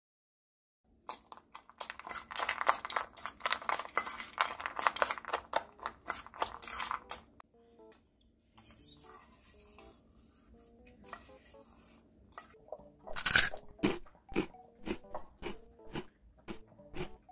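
A spoon stirring water-soaked kibble in a stainless steel bowl, a dense run of clicks and scrapes; later, a Maltese eating the food from its bowl, a string of separate chews.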